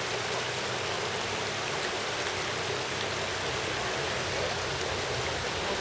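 Mountain river water rushing steadily over rocks, an even unbroken hiss.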